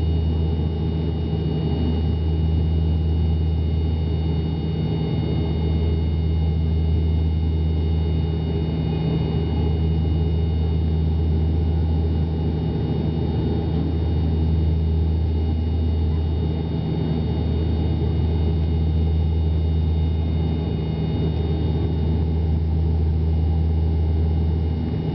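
Cabin noise of an ATR twin-turboprop airliner climbing after takeoff: a steady low propeller drone that swells and dips about every four seconds, with faint steady high-pitched whines above it.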